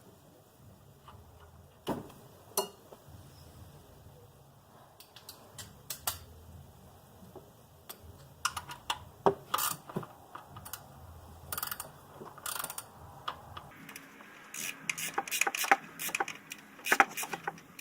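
Ratchet wrench clicking in short runs as the belt tensioner's adjusting bolt is turned, tightening the new serpentine belts, with scattered knocks of tools on the engine. Only a few isolated clicks at first, growing busier after about eight seconds.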